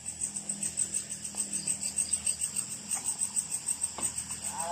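Night insects, crickets by their sound, trilling high and steady in a fast pulse of about six or seven beats a second.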